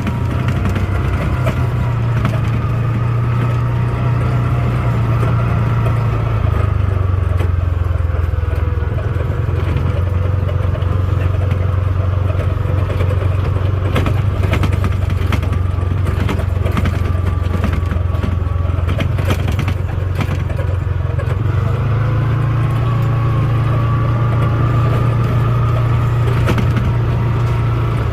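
Farm vehicle engine running steadily while driving, its note dropping about six seconds in and rising again near the end, with scattered clicks and rattles.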